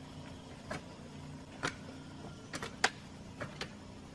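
Hand hoes chopping into stony soil: a handful of short, sharp, irregular knocks, the loudest a little before three seconds in, over a faint steady low hum.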